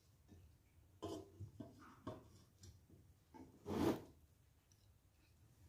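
Faint handling sounds of a non-stick frying pan with a glass lid being shifted in the hands over its cardboard box: a few soft, short rubs, the loudest just before four seconds in.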